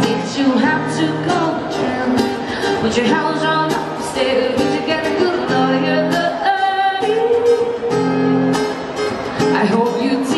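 A woman singing live into a microphone, accompanied by an acoustic guitar, with long held notes.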